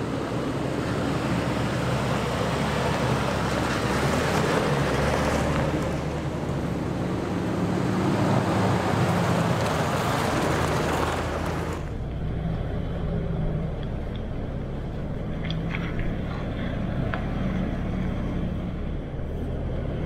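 Off-road SUVs driving past on a gravel track: tyres crunching over stones with engines running. About twelve seconds in, this gives way abruptly to a quieter, steady engine drone from a vehicle driving the dirt trail, with a few short rattles and knocks.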